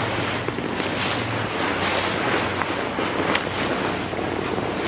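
Nylon sleeping bag and sleeping pad rustling and swishing in a run of short swishes as a person climbs into the bag and settles down.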